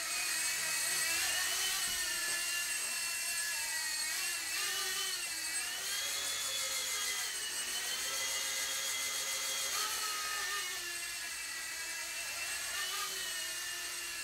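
Blade mSR ultra-micro RC helicopter flying, its small electric motor and rotor giving a steady high whine that rises and falls in pitch as it manoeuvres.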